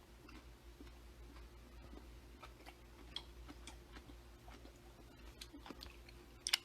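Faint chewing of a mouthful of food: scattered soft, irregular mouth clicks over a low steady hum.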